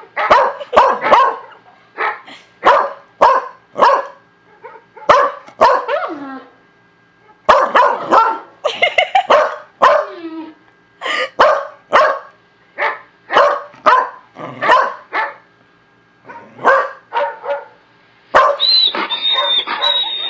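A beagle-type dog barking over and over in sharp single barks, one or two a second with a couple of short pauses. Near the end the barking gives way to a continuous higher-pitched sound.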